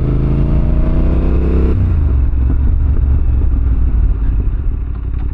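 Yamaha Ténéré 700's parallel-twin engine pulling through its exhaust while riding, the pitch climbing for about two seconds. It then drops to a lower, choppier note as the throttle comes off.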